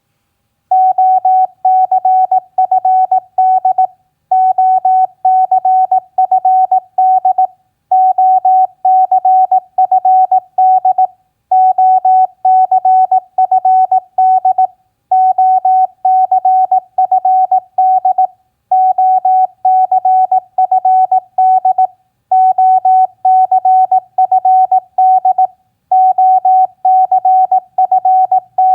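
Morse code (CW) practice tone sent at 18 words per minute: a single steady beep keyed rapidly on and off in dots and dashes. It comes in about eight groups of characters, each about three seconds long, with short pauses between them.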